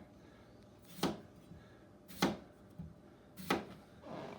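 Kitchen knife slicing a raw potato into rounds, striking the cutting board three times about a second apart.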